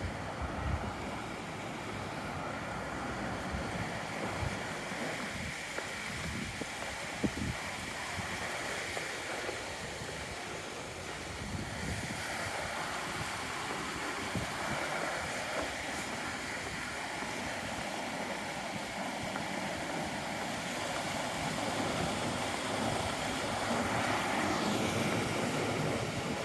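Wind buffeting the microphone in uneven low rumbles over a steady rushing background noise that swells slightly near the end.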